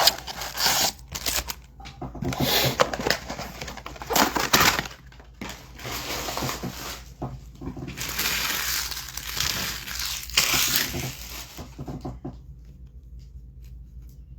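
Trading-card pack wrappers crinkling and tearing as packs are opened and handled, in irregular rustling bursts that die down about twelve seconds in.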